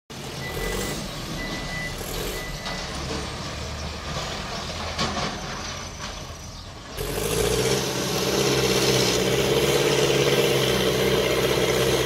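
Mahindra backhoe loader's diesel engine running under load as it pushes sand, with a high backing-up beep sounding three times in the first few seconds. About seven seconds in, the engine becomes suddenly louder and closer.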